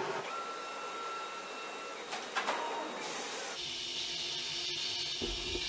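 Automated battery-module assembly machinery running: a steady mechanical hum with a thin held tone and a few clicks about two seconds in, then a steady hiss from about three and a half seconds in.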